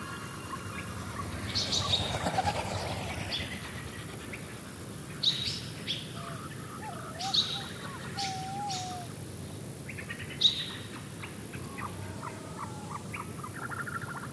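Wild birds calling: several short, sharp chirps, a couple of wavy whistled notes in the middle, and a quick run of repeated notes near the end, over a steady high hiss.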